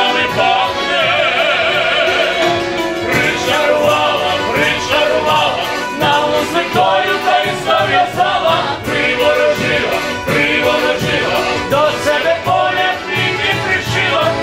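Live band music: an accordion playing with male voices singing a Ukrainian folk song, over a steady beat.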